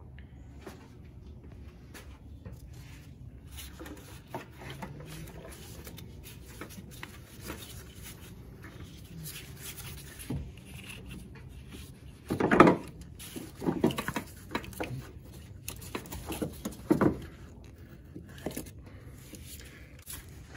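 Clunks and knocks as the old upper engine mount is worked loose and pulled out of the engine bay, with the coolant reservoir held aside, over a low steady hum. A loud cluster of knocks comes about twelve seconds in, followed by several more over the next few seconds.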